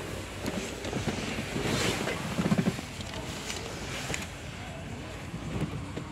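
Cabin noise inside a waiting coach bus: a steady low rumble with rustling and a few knocks, loudest a little over two seconds in.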